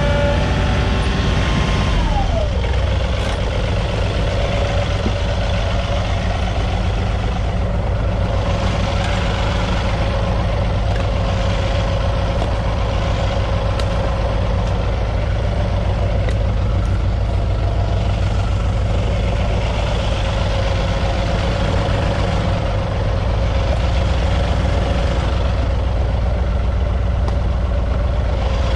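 John Deere compact tractor's engine running steadily close by, with a steady whine over the low hum that drops in pitch about two seconds in and then holds.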